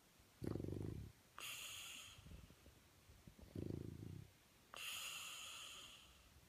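French bulldog snoring in his sleep: twice, a short low rattling snore followed by a longer airy hiss, in a slow rhythm about three seconds apart.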